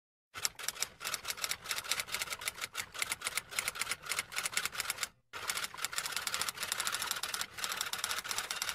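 Rapid clatter of typewriter keystrokes, an edited-in sound effect, in two runs with a brief break about five seconds in.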